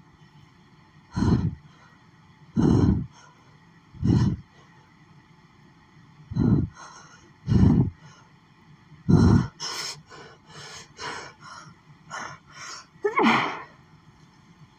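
A woman's allergic sneezing fit, set off by lily pollen: a run of about seven loud sneezes a second or two apart, with smaller gasping breaths between, the last one near the end falling in pitch.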